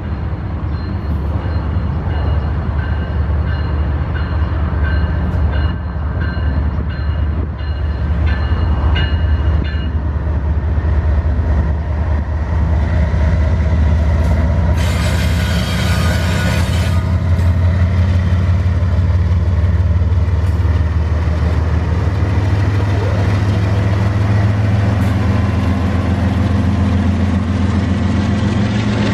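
Freight train passing close by: the deep steady rumble of its diesel locomotive engines and rolling railcars grows a little louder through the first half. A burst of hiss lasting about two seconds comes about halfway.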